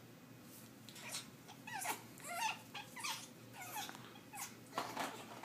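African grey parrot giving a run of short, pitiful calls that bend up and down in pitch, about two a second, turning harsher and louder near the end. These are hormonal breeding-season calls.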